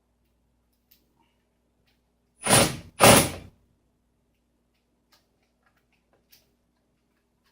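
Two short rasping noises, each about half a second, one right after the other about two and a half seconds in, from parts being handled during assembly of the printer's back panel.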